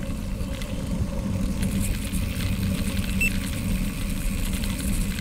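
Steady low rumble of wind buffeting a bike-mounted action camera's microphone at about 20 mph, mixed with bicycle tyres rolling over packed gravel.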